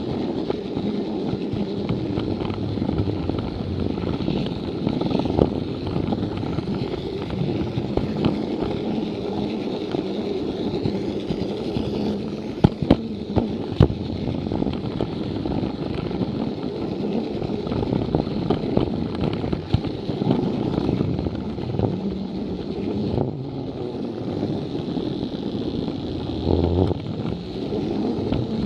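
Plarail battery-powered toy train's small electric motor whirring steadily as it runs along plastic track, heard close up from a camera riding on the train. A few sharp clicks about halfway through.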